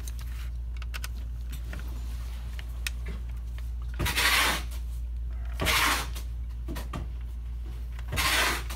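Three short scrapes as the plastic case of a PS4 power supply is pushed and handled on a workbench by gloved hands, over a steady low hum.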